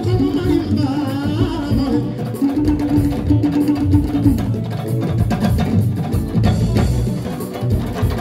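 Live music played loud over a PA: fast, dense hand-drum percussion over a bass line, with a held note that drops out about four seconds in.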